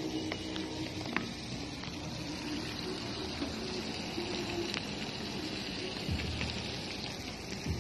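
Steady rushing outdoor background noise of a city park with traffic around it, with a few faint clicks in the first couple of seconds.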